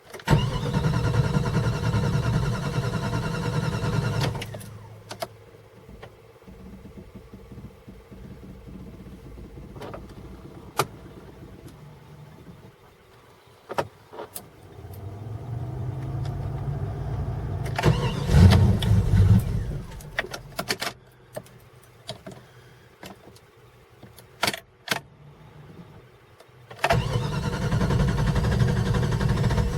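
The starter of a 1995 Jeep Grand Cherokee's 5.2-litre V8 cranks the engine three times: for about four seconds at the start, briefly in the middle and again near the end. Between the tries there are sharp clicks and a hum. This is a cold-morning hard start: the engine turns over but is slow to fire.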